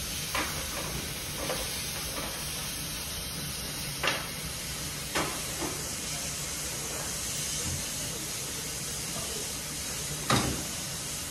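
C12 66 steam locomotive standing with a steady hiss of escaping steam. Three short sharp knocks stand out, about four, five and ten seconds in.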